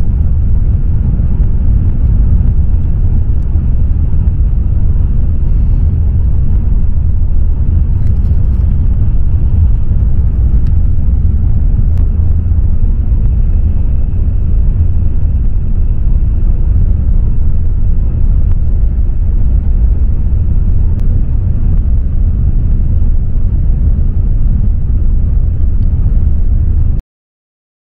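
Steady low rumble of a Nozomi bullet train's cabin while running, even throughout, cutting off suddenly near the end.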